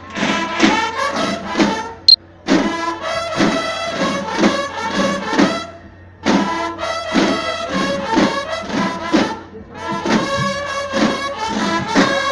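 Uniformed brass and drum band playing live: trumpets and trombones play phrases over steady drum strokes, with short breaks about two and six seconds in. A sharp click sounds about two seconds in.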